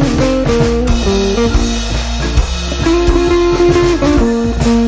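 Background music led by a plucked guitar playing a melody of held notes over a low bass.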